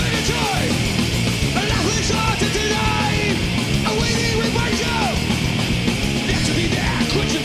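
Thrash metal band playing live: distorted electric guitars, bass and drums, with shouted lead vocals over them.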